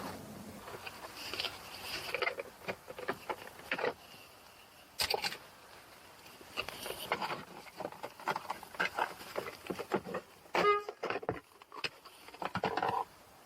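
Hands and tools working on car interior trim: irregular clicks, taps and plastic rattles, with a louder clatter about five seconds in and a short ringing metallic clink about ten and a half seconds in.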